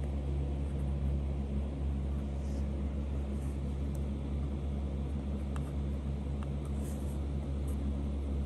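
A steady low hum with a few faint clicks of light handling on top.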